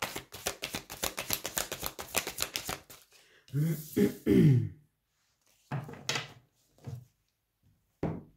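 Tarot deck shuffled by hand: a rapid run of soft card-on-card clicks for about three seconds, then a card laid down on a wooden table. A brief voice sound comes near the middle.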